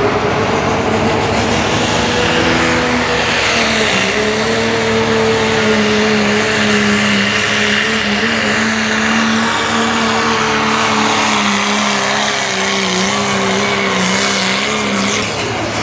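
Diesel engine of a pro stock diesel four-wheel-drive pulling truck running flat out under load while it drags the pulling sled, with a thin high whistle over the engine note. The engine note holds steady and sags slowly as the sled bears down.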